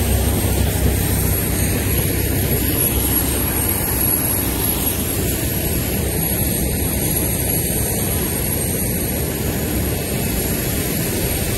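Steady roar of aircraft turbine engines running on an airport apron, with a thin, high steady whine over it.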